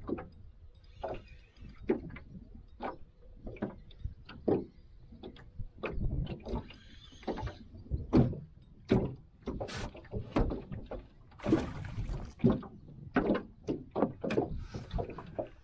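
Water slapping against the hull of a small aluminium jon boat, making irregular knocks a couple of times a second, with a short burst of hiss about eleven seconds in.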